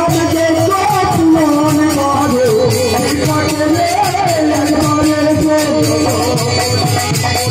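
Live Bengali kirtan: men singing a devotional melody together over a harmonium, with a two-headed barrel drum (khol) and other percussion keeping a steady rhythm.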